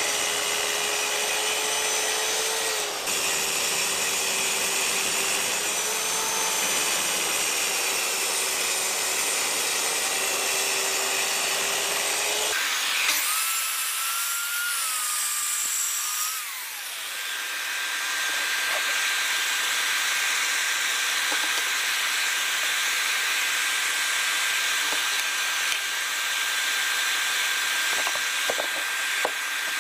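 Plunge-cut track saw running along its guide rail, cutting plywood, with a steady motor whine. About twelve seconds in the sound changes suddenly and winds down in pitch, then a steadier, higher whine carries on.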